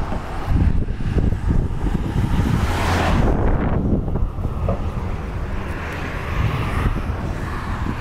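Wind buffeting the microphone: a dense, gusting low rumble, with a brief hissier swell about three seconds in.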